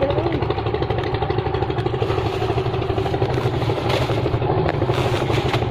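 An engine running steadily with an even low rumble, with a few short knocks of handling in the second half.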